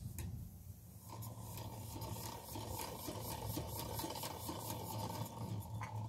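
Scale model of James Watt's 1788 whim engine running while its rope drum lowers a bucket: a steady whine with fast, regular clicking that starts about a second in and stops with a click just before the end.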